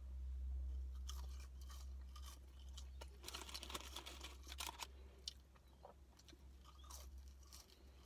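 Close-up chewing and crunching of McDonald's fries, irregular crisp crunches as they are bitten and chewed, over a steady low hum.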